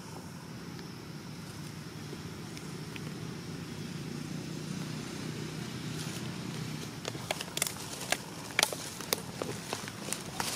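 Dry leaf litter crackling, with sharp crackles and snaps coming thick from about seven seconds in, over a steady low rumble.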